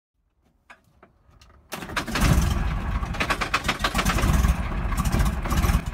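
A few faint clicks, then about two seconds in an engine catches and keeps running loudly and roughly.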